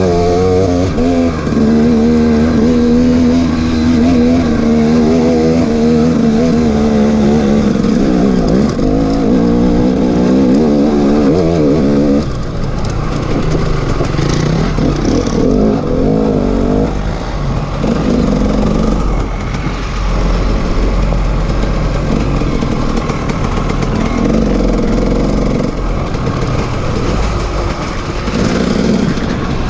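2011 KTM 300 two-stroke single-cylinder dirt bike engine running under way on a trail ride, its pitch wavering as the throttle works. It holds a fairly steady pitch for about the first twelve seconds, then turns choppier, with the revs rising and falling in quick blips.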